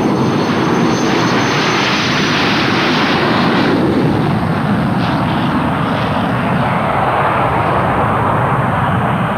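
English Electric Canberra's twin Rolls-Royce Avon turbojets at take-off power: loud, steady jet noise with a thin high whine that fades out about two seconds in. The sound turns duller over the last few seconds as the aircraft lifts off and climbs away.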